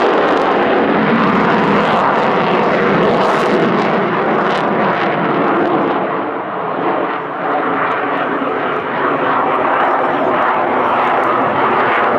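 Loud, steady jet noise from a Saab JAS 39 Gripen fighter's Volvo RM12 turbofan as it manoeuvres overhead, easing slightly about halfway through.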